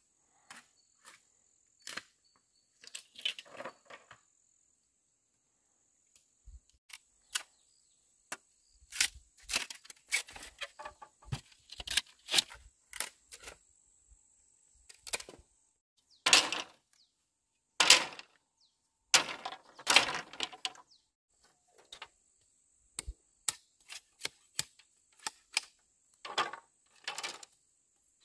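Bamboo being cut and split with a blade: irregular sharp knocks and cracks coming in clusters, with a thin, steady, high insect buzz behind that drops out for a while.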